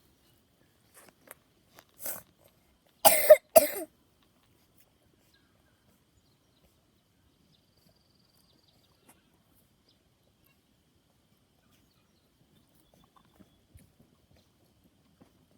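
A person coughing: a small cough about two seconds in, then two loud harsh coughs in quick succession about a second later.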